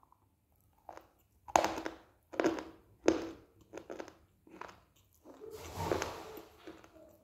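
A person chewing a mouthful of dry white clay: a string of sharp crunches for the first four or five seconds, then a longer grinding crunch near the end.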